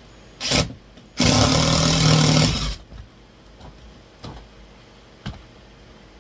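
Power drill driving a screw to fix a wall-mount bracket: a short burst, then a steady run of about a second and a half. A few light clicks follow.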